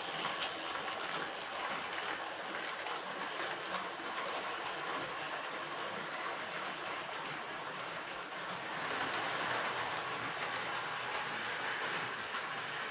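Tri-ang Hornby M7 tank locomotive, a OO-scale model train, running with coaches on elevated track: a steady rattling motor whir with light wheel clicking over the rail joints, a little louder from about nine seconds in as it passes closer.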